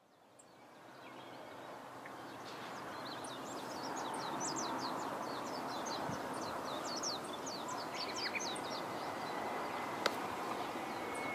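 Small birds twittering in quick, short chirps over a steady outdoor noise that carries the running sound of an approaching JR Shikoku 8000 series electric limited-express train. A single sharp click comes near the end.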